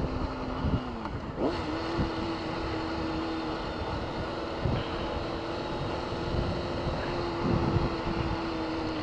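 Sport motorcycle engine running at a steady cruise, under wind and road noise on a camera mic. The engine note dips and picks up again about a second and a half in, then holds steady.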